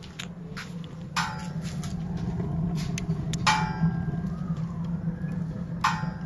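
Homemade wood-burning rocket stove burning hard, a steady low roar of the strong draft pulling through its firebox and riser. Three sharp knocks stand out, about a second in, midway and near the end.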